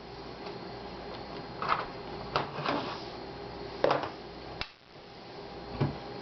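Several separate plastic clicks and knocks from a laptop being handled as its battery is taken out, over a faint steady hum.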